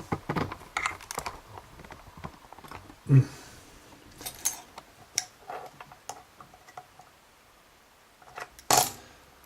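Scattered small clicks and taps of a lock and tools being handled, with a louder knock about three seconds in and a sharp clatter near the end.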